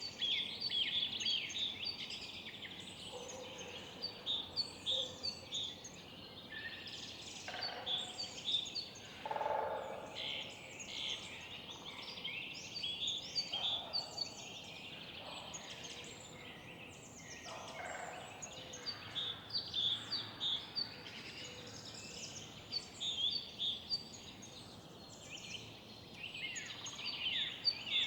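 Many songbirds singing and chirping together in a busy morning chorus. A few short, lower bird calls stand out now and then.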